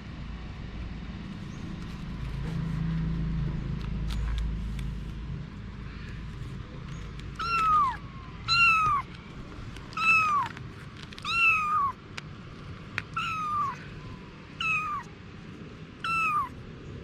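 Cat meowing eight times in a row, each meow short and falling in pitch, about one a second, starting about seven seconds in. A low steady rumble runs underneath, strongest in the first half.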